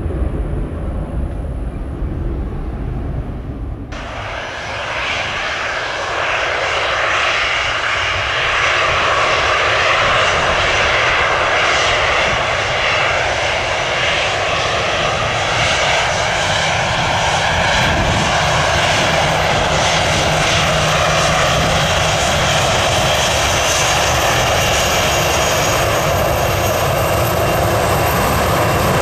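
Airliner jet engines at takeoff power on a departure: a loud, steady rushing noise that cuts in abruptly about four seconds in, after a low rumble.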